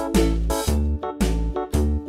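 Upbeat background music with a steady beat and bright pitched instrument notes.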